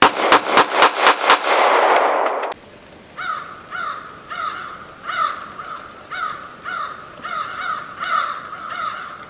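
A quick volley of about six gunshots, four a second, whose echoing tail cuts off abruptly, followed by a crow cawing in a steady run of harsh calls about every half second.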